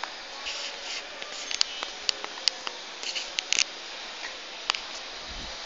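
Steady outdoor hiss with scattered sharp, high clicking taps, about a dozen at irregular intervals, most of them bunched in the middle.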